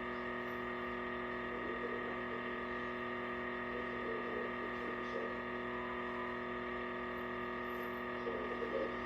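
Steady electrical hum made of many fixed tones, holding a constant level. A few faint, brief muffled sounds come about 2 seconds in, around 4 to 5 seconds in, and near the end.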